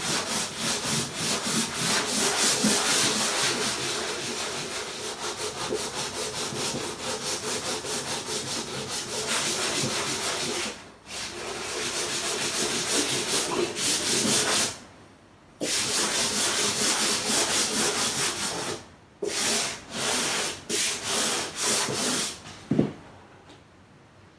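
Sandpaper rubbed by hand over a painting panel's built-up ground layers, in quick back-and-forth strokes at about four a second: the ground is being sanded smooth before painting. The strokes pause briefly a few times and stop shortly before the end.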